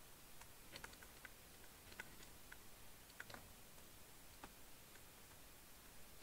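Near silence with faint, irregular light clicks of a stylus tapping on a writing tablet as numbers are written by hand.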